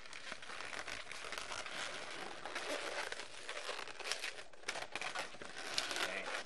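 Latex 260 modelling balloons rubbing and crinkling against the hands while being twisted into an ear twist, a continuous rustle with scattered sharp clicks.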